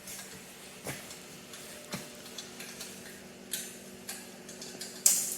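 Scattered light clicks and taps, roughly one a second, of hand tools and metal parts as the muffler and airbox cover come off a small engine, over a faint steady hum.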